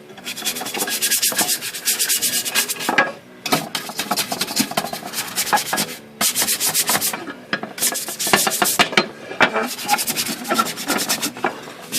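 A stiff brush scrubbing the wet wrinkle-finish paint of a Royal Quiet De Luxe typewriter's case in rapid back-and-forth strokes, in four spells with short pauses between.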